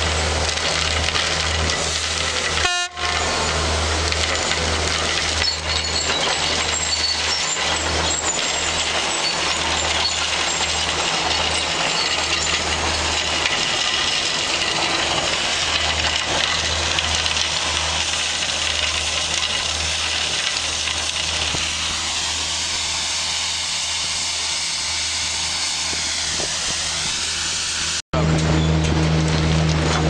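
Railway track vacuum-cleaning machine running: a steady deep hum under a broad rushing noise. The sound breaks off for an instant about three seconds in and again near the end.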